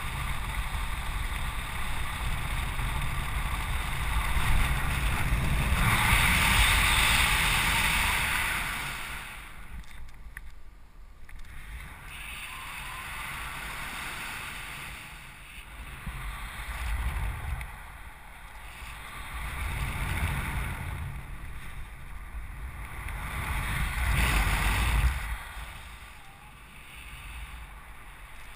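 Wind rushing over the camera microphone of a paraglider in flight, swelling and easing several times as the wing swings through steep banked turns, loudest about a quarter of the way in and again near the end.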